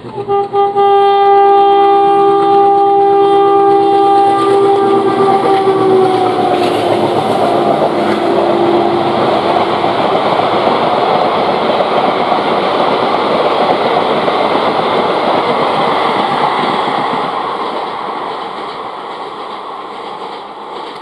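Express train running through a station at speed. The locomotive's horn sounds one long blast for about six seconds, its pitch dropping as the engine passes. Then comes the rushing clatter of the coaches on the rails, fading away near the end.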